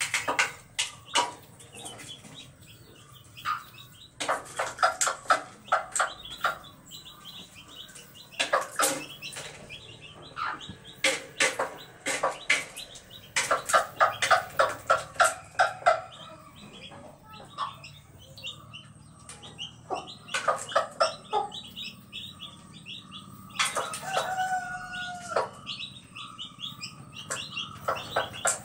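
A small flock of free-range chickens clucking and squawking in clusters of quick, sharp calls. Near the end comes one longer, drawn-out call held on a steady pitch that drops away at its end.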